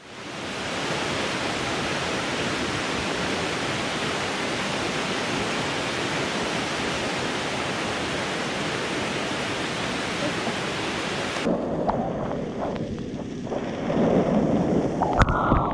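Steady rushing of a waterfall pouring into a pool. About two-thirds of the way through the sound turns abruptly muffled and duller, then louder, uneven churning and splashing of falling water near the end.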